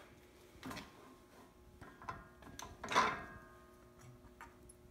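Metal clicks and knocks as a tubing notcher's vise is unclamped and a metal tube is handled out of the fixture, with one louder metal clank about three seconds in that rings briefly. A faint steady hum runs underneath.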